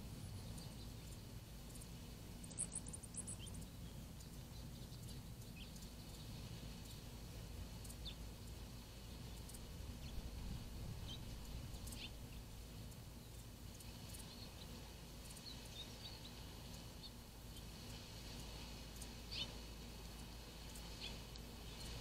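Faint desert ambience: a steady low background noise with scattered short, high bird chirps, a quick run of them about two and a half seconds in.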